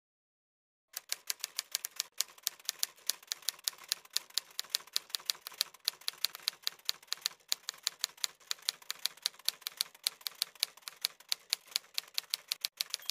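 Typewriter keys clacking in a rapid, fairly even run of about seven keystrokes a second, starting about a second in.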